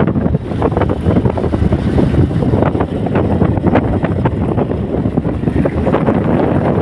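Wind buffeting the microphone: a loud, uneven rumbling rush with no voices.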